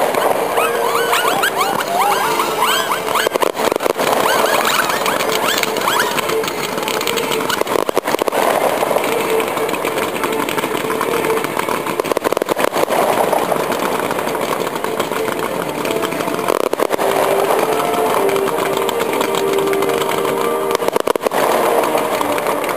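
Fireworks going off in a dense barrage: continuous hissing and crackling from ground fountains and low bursts, with many sharp pops throughout and a cluster of rising whistles in the first few seconds.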